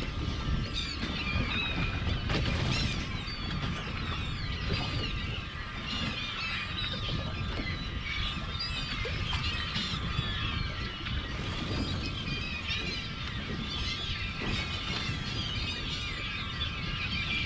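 A large flock of seabirds calling constantly and overlapping while feeding over breaking fish, with wind buffeting the microphone underneath.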